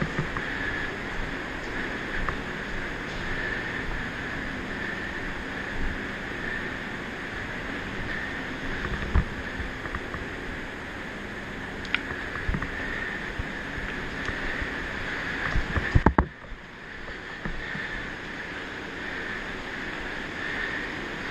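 Steady rushing noise from a head-mounted action camera carried by a moving airsoft player, with scattered small clicks and a short burst of sharp knocks about 16 seconds in.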